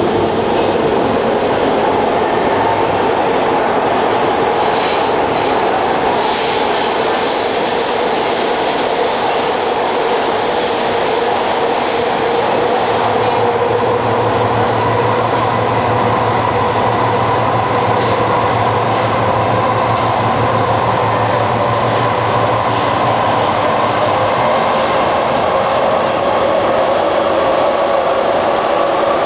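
Kawasaki C151 electric train heard from inside the car running through the tunnel: steady wheel and running noise with the whine of its Mitsubishi GTO chopper traction equipment. A hissing wheel squeal comes in about 4 seconds in and stops near 13 seconds, and a low hum follows until about 24 seconds in.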